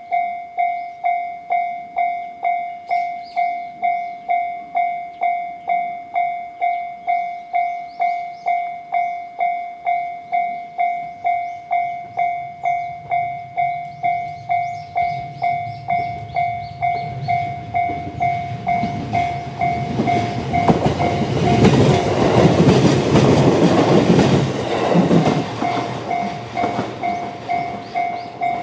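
Level-crossing warning bell in the JR standard electronic tone, ringing steadily about every 0.7 s. A JR EV-E301 series battery-electric train approaches and passes: a rising rumble and wheel clatter loudest a little past the middle, then fading while the bell keeps ringing.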